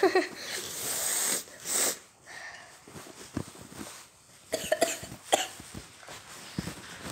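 A boy coughing and sniffing in short bursts close to a phone's microphone; he says he has the flu.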